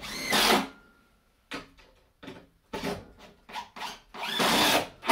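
Power drill driving 2-inch drywall screws into wood: two short bursts, about half a second at the start and about a second near the end, with light knocks of handling in between.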